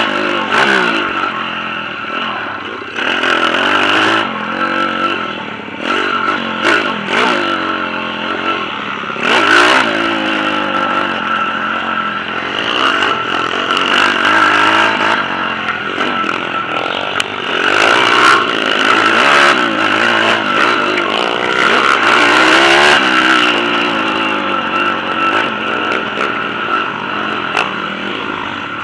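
Pit bike engine revving up and falling off again and again as it is ridden on a dirt track, with frequent clattering knocks from the bike over the bumps.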